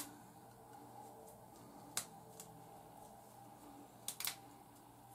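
Quiet handling of hair with a few faint, sharp clicks and snaps as a small rubber band is worked onto a folded-over section of sisterlocs: one at the start, one about two seconds in, and a quick pair near the end.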